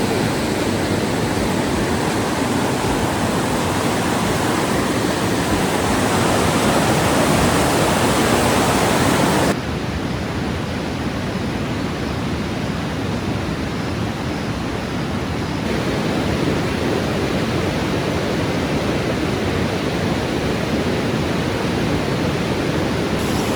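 A river rushing over rocks: a steady, loud hiss of flowing water that changes abruptly in tone and level about ten seconds in and again near sixteen seconds.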